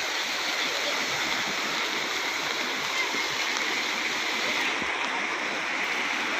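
Floodwater flowing fast, a steady unbroken rush of water.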